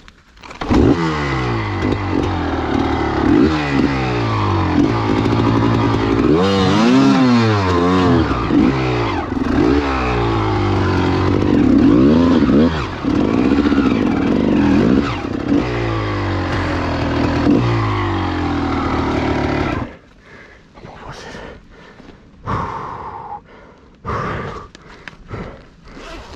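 Gas Gas EC 300 two-stroke enduro motorcycle engine catching about a second in, then revving up and down repeatedly under hard throttle. It cuts out suddenly near the end, leaving scattered clattering and scraping.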